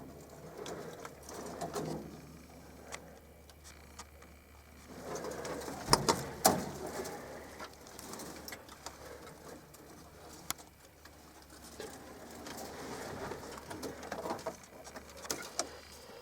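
Pigeons cooing in soft, low, repeated phrases that come and go, with a couple of sharp knocks about six seconds in.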